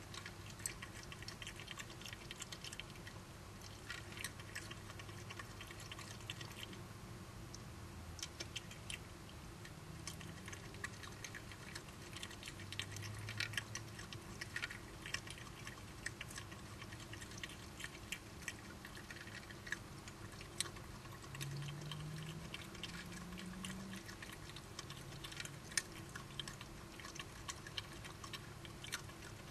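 Badgers chewing and crunching food: faint, irregular, rapid clicks of their eating, over a low steady hum.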